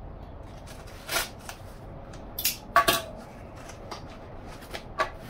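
A folding utility knife and a cardboard box being handled on a wooden tabletop: a handful of short, sharp clicks and knocks, the loudest a close pair about halfway through, as the knife is put down and the box flaps are taken in hand.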